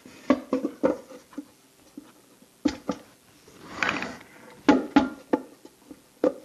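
Wood knocking and scraping inside a Central Pneumatic 2½-gallon steel pressure paint tank as a board is fitted to its bottom. There is a series of sharp knocks, some in quick clusters, and a brief scrape just before the middle.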